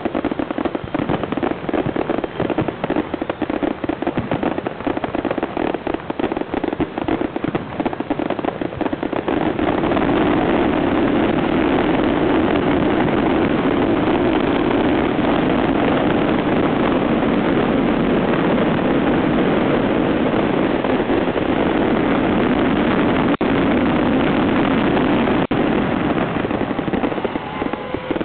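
Fireworks display: rapid bangs and crackling bursts, which about nine seconds in thicken into one continuous dense barrage of crackle and booms, easing off near the end.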